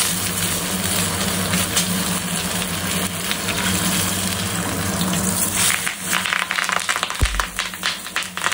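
A banana-leaf parcel of fish frying in oil on a hot iron tawa, with a steady sizzle. From about six seconds in it breaks into sharp crackling and popping, with a dull thump near seven seconds as the parcel is turned over.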